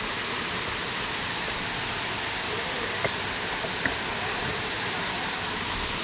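Talakona waterfall, water cascading down stepped rock ledges in a steady rush, with two short clicks about three and four seconds in.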